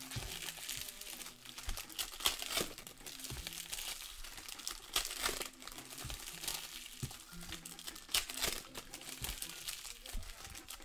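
Plastic wrapping crinkling and tearing in irregular spells as sealed trading-card packaging is opened by hand.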